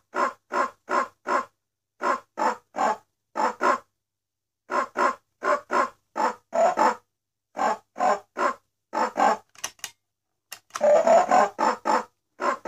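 Vintage singing pig alarm clock singing in short separate notes, about three a second, in phrases broken by pauses of about a second. A couple of clicks are followed, about two seconds before the end, by a louder, continuous electronic tune.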